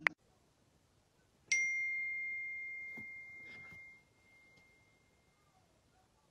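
A single clear, bell-like ding about a second and a half in: one high ringing tone that fades slowly and cuts off after about two seconds. A couple of faint knocks come while it rings.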